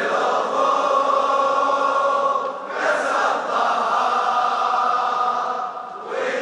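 Large crowd of male mourners chanting a latmiya refrain in unison: long held lines, with a fresh line starting about every three seconds.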